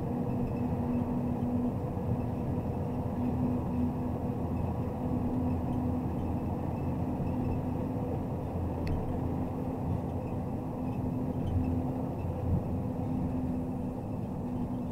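MAZ Zubr truck crane under way, a steady drone of its diesel engine and road noise with a constant low hum.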